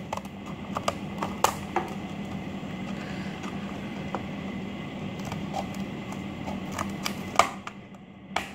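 Scissors snipping through a stiff plastic blister pack, the plastic crackling and clicking in an irregular run of sharp snaps. The loudest snap comes near the end.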